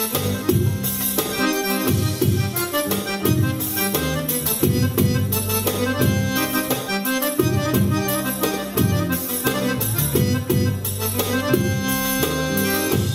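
Oriental dance music played live on a Korg keyboard: a flowing melody over a steady drum rhythm.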